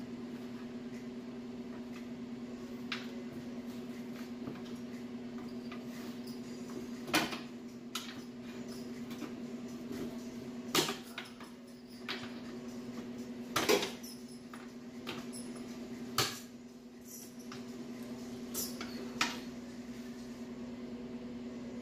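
Scattered sharp metal knocks and clanks, about seven in all, as a pry bar works the loosened exhaust pipe and muffler of a Ford Escape free, over a steady low hum.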